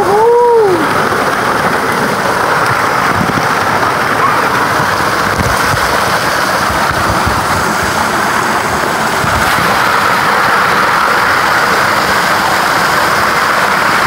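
A small waterfall pouring straight down onto a person and the recording device close to the microphone: a loud, steady rush of falling and splashing water. Near the start, a person's short 'ooh' that rises and then falls in pitch.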